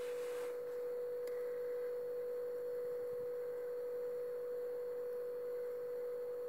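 A steady, unchanging pure tone of middle pitch, a single clean note held without a break.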